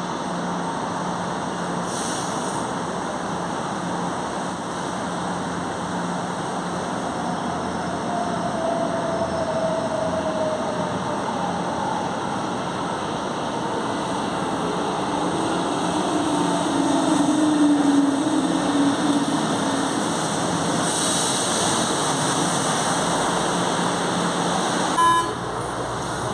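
São Paulo Metro fleet G train running between stations: steady rumble of wheels on rail with the traction motors growling. A drawn-out motor tone slides slowly in pitch and is loudest a little past the middle.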